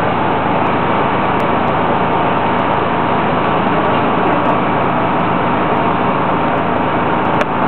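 The engine of a mobile crane running steadily in a low, even drone while the crane holds and lowers a suspended load.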